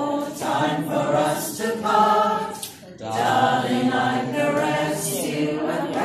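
An amateur choir of older singers singing a song together, with a short pause between phrases about three seconds in.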